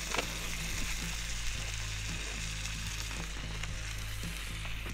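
Garlic, chilli and anchovies sizzling in hot olive oil in a cast-iron skillet, with a few faint knocks as the pan is handled, over background music with low held notes.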